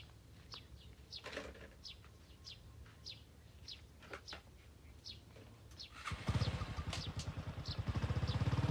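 A bird repeats a short, high, falling call about every half-second. About six seconds in, a small motorcycle's engine starts and keeps running with a rapid, even beat, much louder than the bird.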